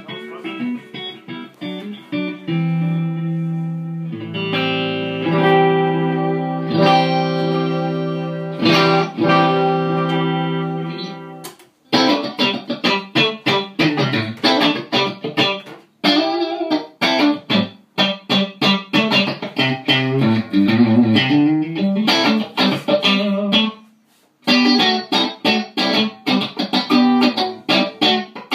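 Electric Strat-style guitar played through a Kool & Elfring Straight 8 amplifier: held, ringing chords for the first twelve seconds or so, then fast, choppy picked notes and riffs, with a brief stop a few seconds before the end.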